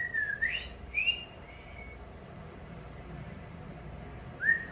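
A person whistling to a pet caique: a few short whistled notes that glide up and down in the first two seconds, then one short falling whistle near the end.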